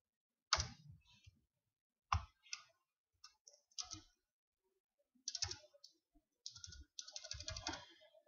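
Computer keyboard keystrokes: a few separate key presses, then a quicker run of presses near the end as text is deleted and retyped in a search box.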